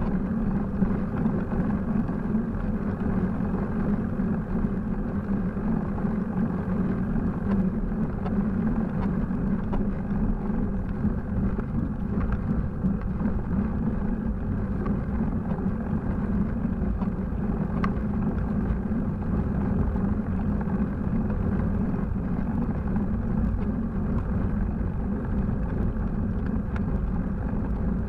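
Steady rumbling road and wind noise from a camera mounted on a bicycle riding on asphalt, with a faint tick about eighteen seconds in.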